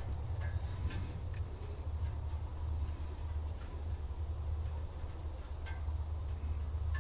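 Outdoor ambience: a steady, high-pitched drone of insects over a low, steady rumble, with a few faint clicks.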